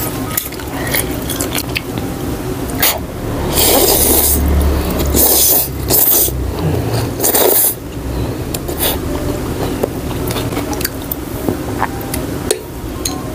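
Close-miked eating of beef noodle soup: wet chewing and small mouth clicks, with loud slurps of rice noodles in several bursts between about three and a half and eight seconds in.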